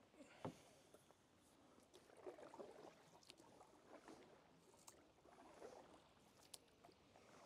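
Faint splashing and dripping of canoe paddles dipping into river water, with a light knock about half a second in.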